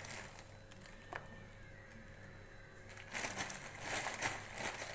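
Crushed butterscotch praline (caramelised sugar and cashews) being scattered over the ice cream: a crackling, crinkly rustle that starts about three seconds in, after a single click about a second in.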